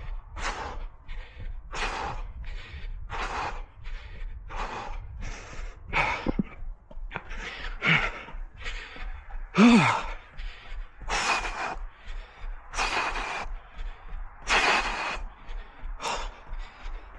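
A runner breathing hard mid-run: quick, rhythmic breaths in and out, about three every two seconds, with a louder voiced gasp about ten seconds in.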